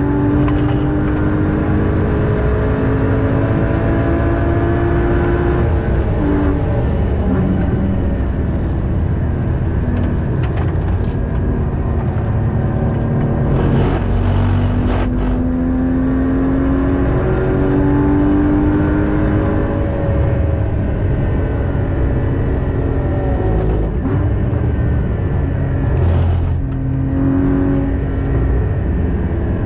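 Porsche Cayman GT4's naturally aspirated flat-six heard from inside the cabin at track speed. The revs climb and drop back again and again through gear changes, over steady tyre and road noise, with a couple of brief bursts of rushing noise partway through.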